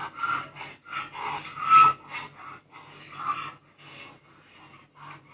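Donkeys braying in a series of short, irregular calls.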